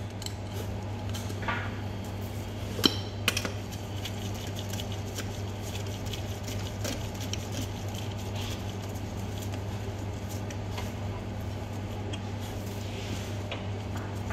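Light clicks and knocks of a centrifuge rotor's parts being handled inside the centrifuge bowl, two sharp ones about three seconds in and fainter ticks after, over a steady low hum.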